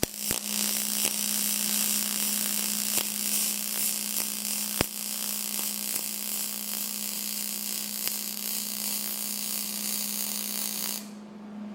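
MIG welding arc on aluminum from a Hobart Spoolrunner 100 spool gun: a steady hiss with a buzzing hum and a few faint crackles, cutting off about eleven seconds in as the bead ends.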